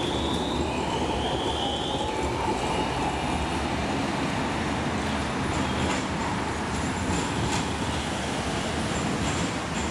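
Alstom Citadis tram pulling away: the electric traction drive whines in a series of rising steps as it accelerates during the first two seconds, over the rumble of wheels rolling on the rails. The sound then settles to a steadier whine and fades a little near the end as the tram moves off.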